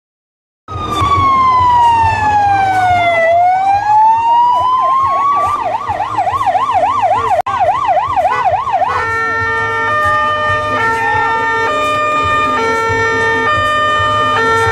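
Police car sirens: a slow wail that falls and rises, switching about five seconds in to a fast yelp. From about nine seconds in it changes to a steady stepped two-tone pattern.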